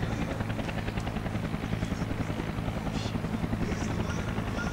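A light single-engine propeller plane's piston engine running steadily, with a fast, even throb.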